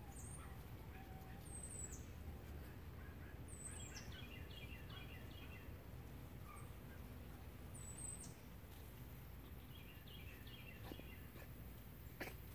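Faint wild songbird calls: a few high, sharp down-slurred notes spaced a few seconds apart and two short stretches of quick twittering, over a low steady background rumble.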